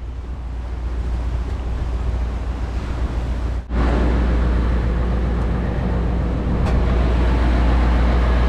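Outrigger fishing boat's engine running steadily underway, with wind and water rushing past. About three and a half seconds in the sound cuts briefly, then the engine comes back louder.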